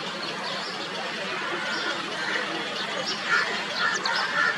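A flock of house sparrows chirping and chattering over a steady background hiss, with short chirps scattered throughout and coming thicker near the end.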